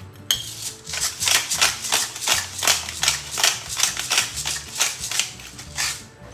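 Hand-twisted pepper mill grinding black peppercorns over pork steaks: a quick run of crunching clicks, about four a second, that stops near the end.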